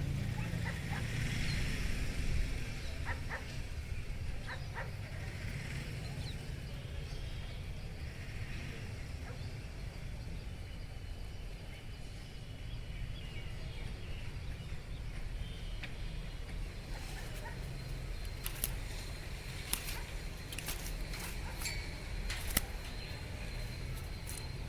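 Outdoor background with a steady low rumble, faint scattered bird calls, and a run of sharp clicks and taps in the last third.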